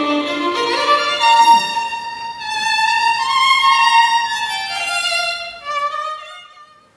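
Slow violin melody of long held notes, fading out and ending shortly before the end.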